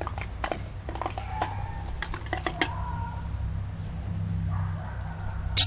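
German Shepherd puppies playing, with scattered small clicks and rustles and a few brief thin whines. A sharp, high-pitched puppy yelp comes right at the end.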